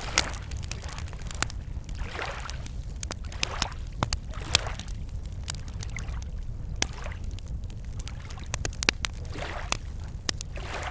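Wood campfire crackling with sharp, irregular pops, while small lake waves lap gently against the shore in soft washes every second or two.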